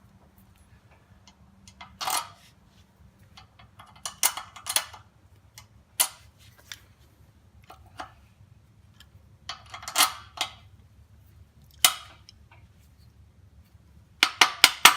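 Steel tools and parts clinking and knocking as bolts are worked into a backhoe quick-connect coupler, with single sharp metallic knocks every second or two and a fast run of knocks, about five a second, near the end.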